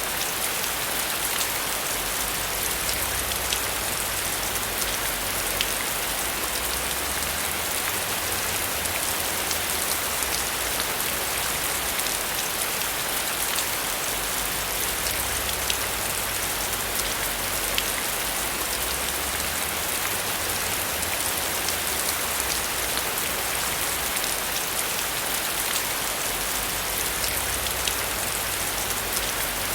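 Steady rainfall: a dense hiss of falling rain with many single drops ticking through it, and a low rumble underneath that swells and fades.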